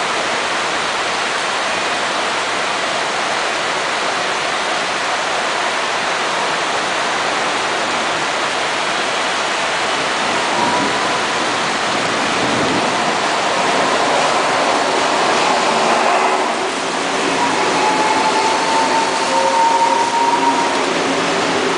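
Heavy rain pouring down as a steady rushing hiss, while a CPTM Série 2000 Fase II electric multiple-unit train runs in alongside the platform. From about halfway, the train's sound rises over the rain, and whining tones from the train come in, with a slightly rising whine near the end.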